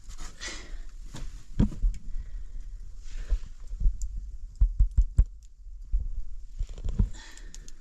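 A series of dull thumps and knocks, with a quick run of about five sharp knocks a little after halfway, and short scraping rustles in between.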